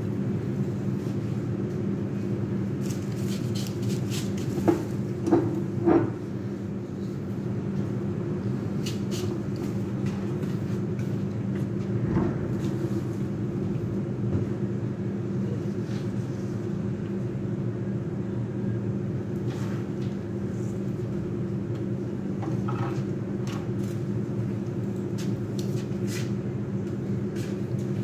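A steady low mechanical hum of an unseen machine, with knocks and clicks of a vase and flower stems being handled on a counter. The loudest knocks come in a quick cluster about five seconds in.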